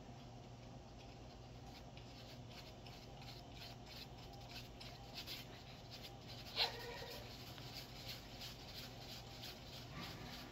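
Faint handling noises: hands rustling the soft nylon rifle case and working a small round part, with light scrapes and clicks over a low steady hum. About two-thirds of the way through there is one sharper click with a brief squeak.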